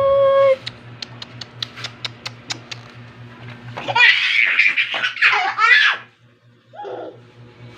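A short squeak at the start and light, quick clicking, then about two seconds of loud, high-pitched laughter.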